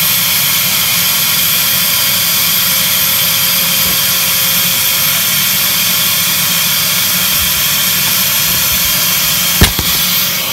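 Household vacuum cleaner running steadily, drawing air through the vacuum bed of a homemade vacuum former and holding the heat-softened plastic sheet down on the mould while it cools. A single sharp knock near the end.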